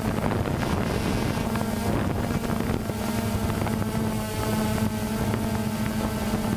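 DJI Phantom 2 quadcopter's motors and propellers buzzing steadily in flight, heard from its onboard camera, with wind noise on the microphone.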